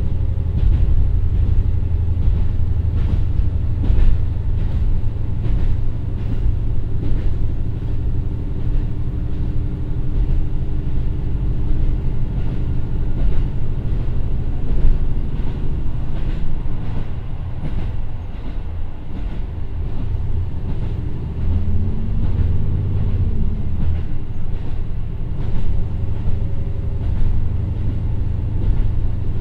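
Inside the passenger cabin of a KiHa 150 diesel railcar running at about 55–59 km/h: the single Komatsu turbocharged diesel engine (N-KDMF15HZ, 450 PS) drones steadily under the floor, and the wheels clack over rail joints. A brief rising-and-falling tone comes about three-quarters of the way through.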